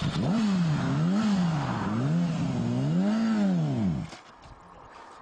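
Motorcycle engine revved up and down about four times in quick succession, the pitch rising and falling with each blip of the throttle. It stops abruptly about four seconds in.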